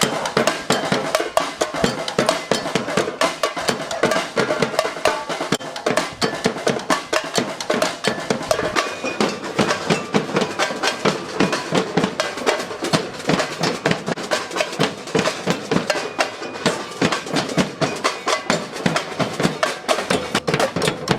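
A group of drums playing a fast, continuous rhythm.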